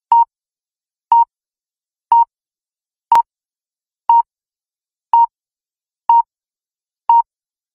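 Countdown clock timer beeps: a short electronic tone repeated about once a second, eight times, the fourth with a sharp click.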